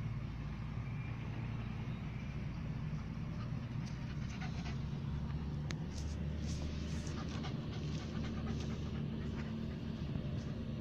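Manchester terrier panting to cool off in the heat, over a steady low hum.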